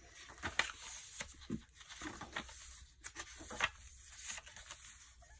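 Paper pages of a handmade junk journal being turned and smoothed by hand: soft, irregular rustles and flicks of paper.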